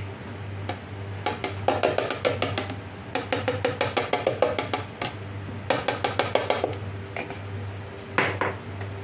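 Ground cumin being shaken from a small glass spice jar into a food processor bowl: three bursts of rapid rattling taps.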